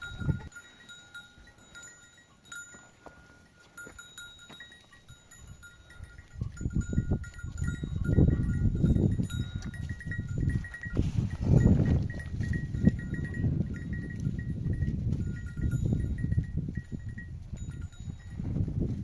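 Bells on grazing livestock ringing faintly and unevenly. Low rumbling noise joins in from about six seconds in and is the loudest sound.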